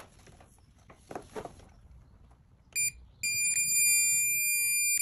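Digital torque wrench beeping: one short beep, then about half a second later a long steady beep. This is the signal that the set torque has been reached on the clutch boss nut.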